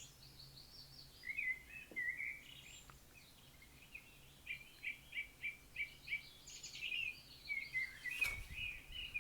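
Birds chirping and singing softly in a series of short, quick notes, with a brief rustle near the end.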